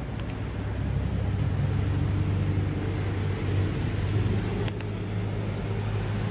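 A black-and-white domestic cat purring close to the microphone: a steady low rumble with a fast, even pulse, a little louder in the middle.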